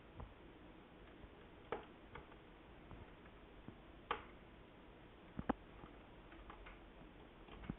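Faint, scattered light clicks and taps, about five, a second or more apart, from working on a laptop's plastic case with a small precision screwdriver.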